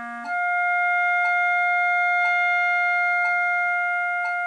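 A B-flat clarinet ends a low written C, then about a third of a second in jumps up a twelfth to its overtone, the G, played without the register key by voicing alone, and holds it steadily. A metronome ticks softly once a second.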